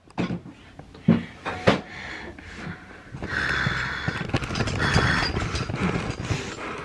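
Handling noise from a camera being grabbed and brought close: a few sharp knocks in the first two seconds, then from about three seconds in a rough, uneven rustling right against the microphone.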